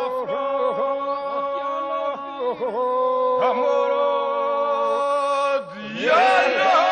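Albanian polyphonic folk singing: a group holds a steady drone (the iso) while lead voices sing ornamented, wavering lines above it. After a short dip near the end, a new, louder phrase begins.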